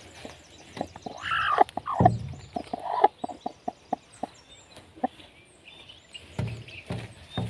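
Hen clucking in short calls while sitting on a straw nest as a hand reaches under her, with dry straw crackling and rustling.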